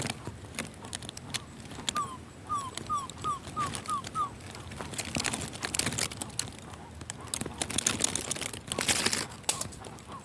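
A jacu (guan) giving a run of seven short, falling yelps, about three a second, over crackling rustles.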